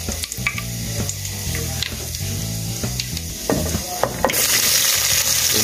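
Minced garlic sizzling in hot oil in an aluminium pot, with clicks and scrapes as a silicone spatula stirs it. About four seconds in, chopped onion and tomato are tipped into the oil and the sizzling suddenly grows louder and hissier.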